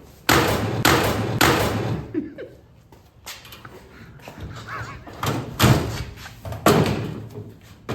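Steel drawers of a Blue-Point tool cart being yanked open and slammed shut hard again and again: a run of loud metal bangs, three in quick succession at the start and several more after a short lull.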